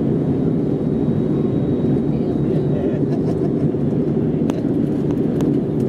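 Steady in-cabin noise of an Airbus A320neo in flight: an even, low rush of airflow and engines. A few faint clicks come in during the second half.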